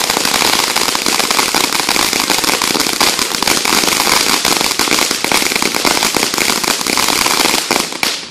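Ground fountain firework spraying sparks with a loud, dense crackling hiss that cuts off sharply as it burns out near the end.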